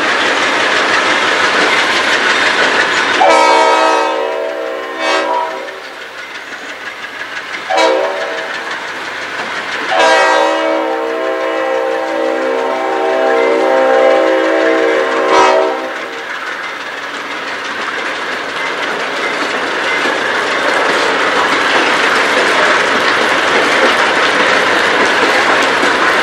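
Diesel freight locomotives and cars rolling past close by, a steady rumble with wheels clacking over the rails. Partway through, the locomotive's air horn blows: a long blast, a short one, then a long drawn-out blast of about five seconds.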